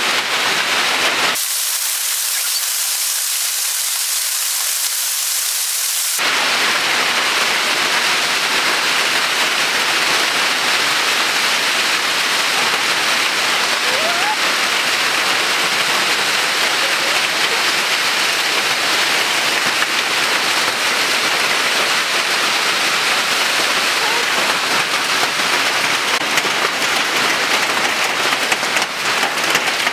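Hail and heavy rain falling on a roof, a loud, even noise. About a second in it turns thinner and hissier for about five seconds, then the fuller sound returns.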